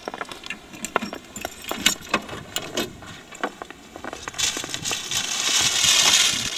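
A series of light clicks and rattles as a car trunk is opened, then loud rustling of plastic shopping bags being pulled about in the trunk.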